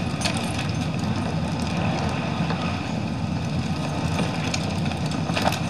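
Steady low rumble of wind blowing across the microphone, with no distinct events.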